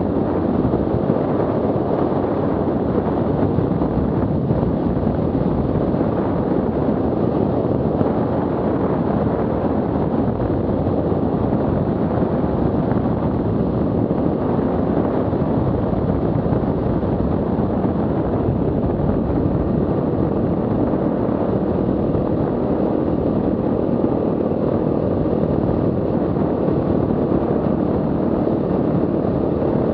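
Enduro motorcycle riding steadily at speed, its engine running under a constant heavy rush of wind on the camera microphone.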